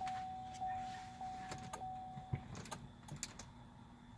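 A steady electronic tone inside the car, pulsing about every 0.6 s, stops about two and a half seconds in. Several sharp clicks from keys and plastic being handled are heard during and after it.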